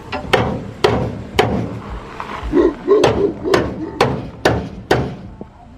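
A series of about nine sharp knocks on the dented sheet-metal bed panel of a Ford Ranger pickup, roughly two a second, with a short pause midway.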